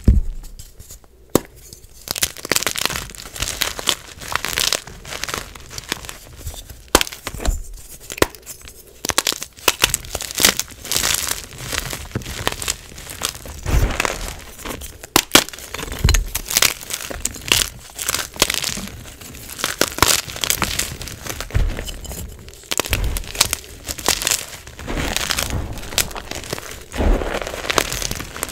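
Hands crushing and crumbling gym chalk: dry, crisp crunching of broken chalk pieces and loose powder being squeezed and raked, with many sharp crackles coming irregularly throughout.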